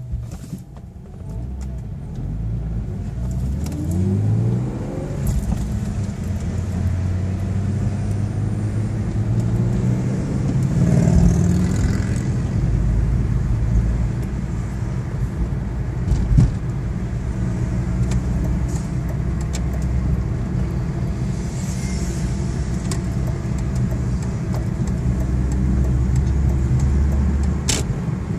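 Car engine and road noise heard from inside a moving car. The engine note rises twice in the first dozen seconds as the car pulls away and speeds up, then settles into a steady drone at cruising speed.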